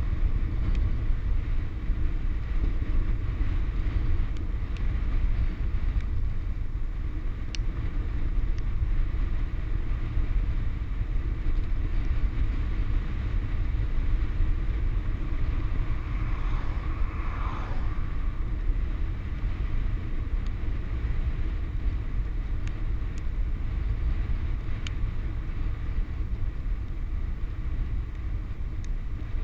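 Steady rush of wind buffeting the microphone, mixed with tyre hum on the road, as a loaded touring bicycle coasts fast downhill, with a few small clicks.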